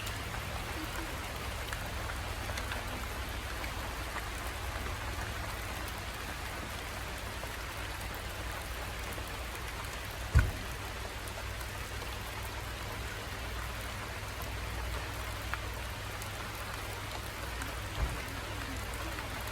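Steady rain falling, an even hiss over a low steady hum, with a sharp thump about halfway through and a smaller one near the end.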